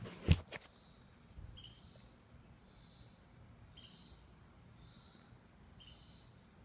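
Camera being handled: a few knocks, the sharpest about a third of a second in. Then a faint high sound repeating about once a second.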